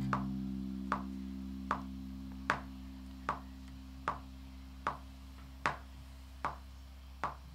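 Electric bass guitar letting a final low note ring and slowly die away, over a steady metronome click ticking about every 0.8 seconds.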